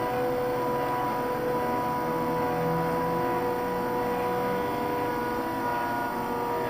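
Stepper motors of a home-built CNC hot-wire foam cutter whining steadily as they drive the lead screws and move the wire through the foam, with a lower tone dropping in and out as the axes change speed.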